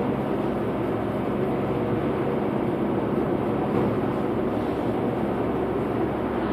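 Steady engine and tyre drone of a vehicle cruising on a paved road, heard from inside the cabin. Near the end, the faint whoosh of an oncoming car passing.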